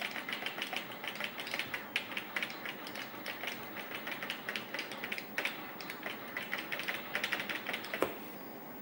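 Rapid, irregular clicking and ticking of small hard parts, several clicks a second, with one heavier knock about eight seconds in.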